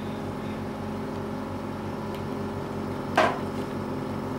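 Oxygen concentrator running with a steady hum. One short, sharp noise comes about three seconds in.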